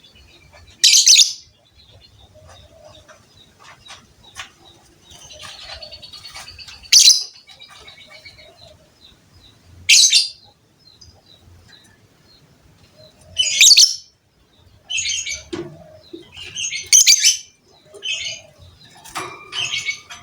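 Lovebird giving loud, shrill chirps every few seconds, coming closer together near the end, with softer twittering chatter in between.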